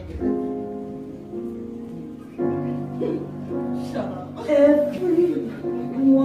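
Live jazz-blues band playing a slow song: sustained keyboard chords open it and more instruments join about two and a half seconds in. A woman's singing voice enters near the end.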